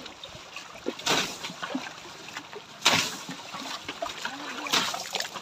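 Water flung from a plastic basin splashing hard against a tractor's tyre and body, three big splashes about two seconds apart, with water sloshing between them.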